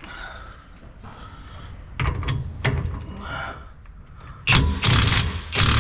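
Cordless impact wrench hammering in short bursts on a GM 10-bolt rear axle's pinion nut, crushing the crush sleeve to set pinion bearing preload. The bursts start about two seconds in, and the loudest come near the end.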